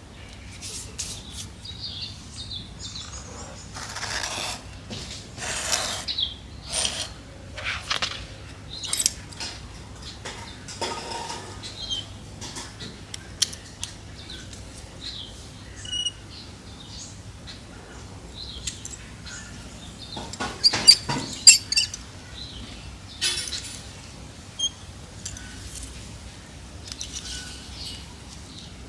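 Hands working potting soil and a chili plant in a ceramic pot: scattered scrapes, rustles and sharp clicks, with a loud cluster of clicks about two-thirds of the way through. A few faint bird chirps come and go in the background.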